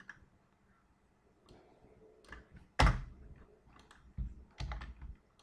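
Computer keyboard typing in scattered short taps, with one louder clack about three seconds in and a quick run of taps near the end.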